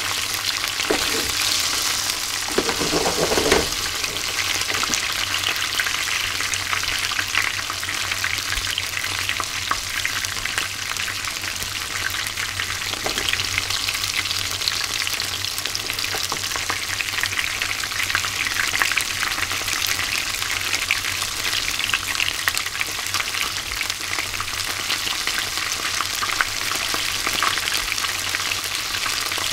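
Small chika (Japanese smelt) deep-frying without batter in hot oil: a steady, dense sizzle and crackle of bubbling oil. A short heavier clunk about three seconds in.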